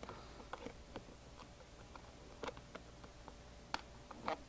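Faint, irregular clicks and taps of thin clear plastic being worked with jewelry pliers as plastic connector tabs are tucked into slits in plastic box tops, with a few sharper clicks in the second half.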